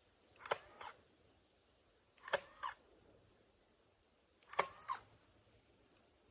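Staple gun firing three times about two seconds apart, driving staples through wire mesh into a tree trunk; each shot is a sharp snap followed by a softer click a moment later.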